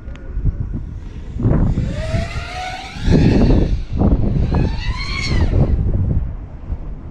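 FPV quadcopter's brushless motors whining, the pitch rising and falling again and again with the throttle, over wind rumble on the drone's onboard camera microphone.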